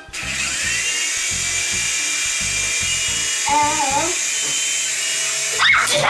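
Small electric rotor motors of a toy remote-control helicopter spinning up with a rising whine at the start, then running steadily with a high, drill-like whine. A brief child's voice cuts in about three and a half seconds in.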